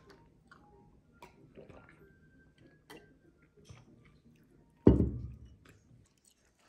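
Quiet eating sounds: light clicks of a fork against a ceramic plate and soft chewing, with one heavy thump about five seconds in.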